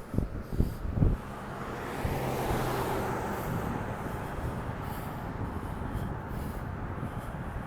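A few sharp thumps in the first second, then a steady rush of passing vehicle traffic with a faint low engine hum.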